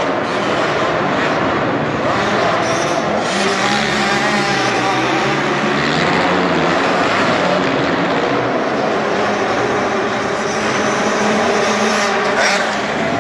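Racing quad (ATV) engine revving up and down as it laps a dirt track, its pitch rising and falling with the throttle, heard inside a large indoor arena hall.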